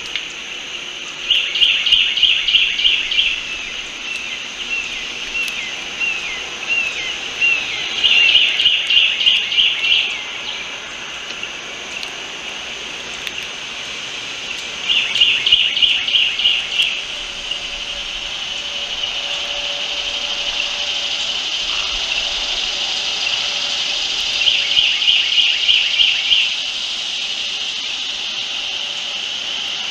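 A songbird singing short bursts of rapid, evenly spaced high notes, four times, with a few slurred chirps between the first two bursts, over a steady high hiss.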